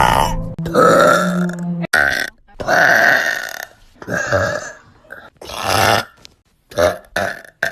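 A string of loud human burps, about eight in quick succession, each lasting from a fraction of a second to about a second.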